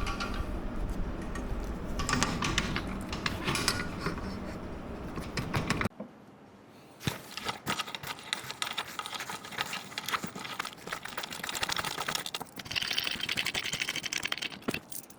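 Rapid runs of small metallic clicks and ticks from hand-tightening bolts with a tool while fixing a chair's tilt mechanism to its seat base. A steady low hum underneath drops out about six seconds in.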